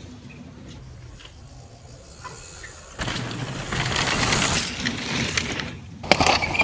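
Downhill mountain bikes coming down a dirt trail: quiet at first, then about three seconds in the knobby tyres rolling and skidding over loose, dusty dirt grow loud as the riders pass close. Near the end come sharp rattles and knocks as the bikes go over the rough trail.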